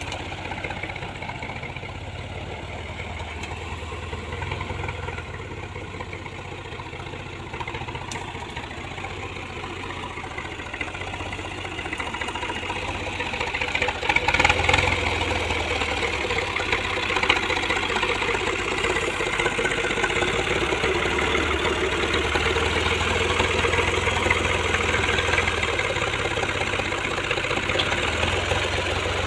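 Kubota M5000 tractor's diesel engine running steadily while it drives a PTO post-hole auger drilling planting holes in soil. The engine gets louder about halfway through.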